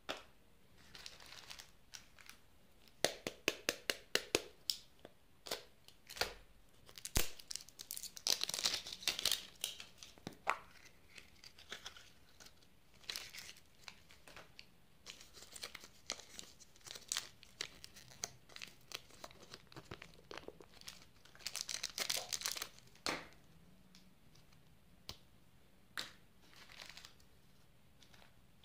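Plastic candy wrappers crinkling and being torn open by hand: clusters of sharp crackles and rustles with quieter gaps between them.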